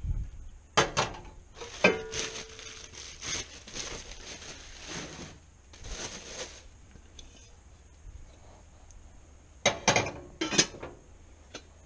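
Tri-ply stainless-steel pots, pans and lids being set down and handled, with sharp metal clanks about a second and two seconds in (the second rings briefly) and two more close together near the end. Softer rustling and shuffling fill the stretch between.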